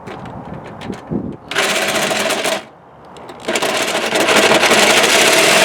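A power tool cutting sheet metal, running in two bursts: a short cut about a second and a half in, then after a brief pause a longer, louder cut from about three and a half seconds in.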